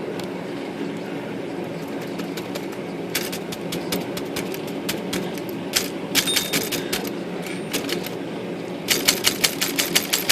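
Voss manual typewriter key being worked over and over, its type bar clacking. The clacks are scattered at first and come in quick succession near the end, as lacquer thinner loosens a sticky type-bar pivot. A steady low hum runs underneath.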